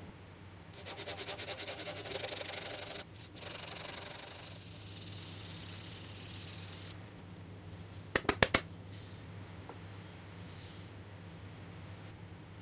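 Hand sanding a wooden tray with sandpaper: quick back-and-forth rubbing strokes, then a steadier rub. About eight seconds in come four sharp knocks in quick succession, the loudest sound.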